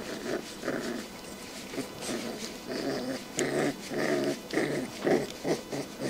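Rottweiler puppies growling: a run of short, low growls, two or three a second.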